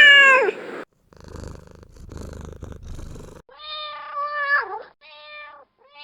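Domestic cat: a loud meow at the start, about two seconds of purring, then several more meows, the first sliding down in pitch at its end.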